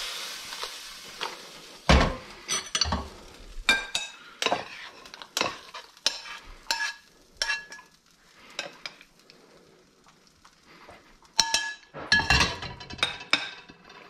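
A utensil clinking and scraping against a pan as gnocchi are tossed in sauce: a string of sharp clinks, many with a brief metallic ring, thinning out in the middle and busy again near the end.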